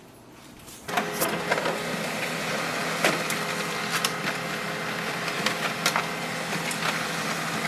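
HP LaserJet Pro M203dw laser printer starting up about a second in and running a two-sided print job: a steady mechanical whir and hum with scattered sharp clicks of the paper feed.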